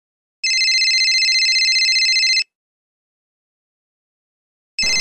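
Desk telephone ringing with an electronic trilling ring: one ring of about two seconds starting half a second in, a pause, then the next ring starting near the end.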